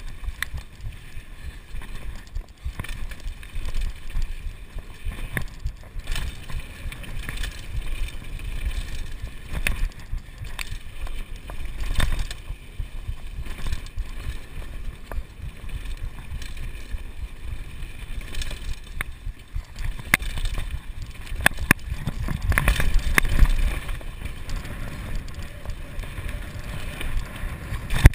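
Kona Supreme Operator downhill mountain bike ridden fast down a dirt jump trail: a steady rush of wind on the microphone and tyre rumble over hardpacked dirt, broken by frequent sharp rattles and knocks as the bike hits bumps and landings. The rumble and clatter grow loudest for a couple of seconds a little over twenty seconds in.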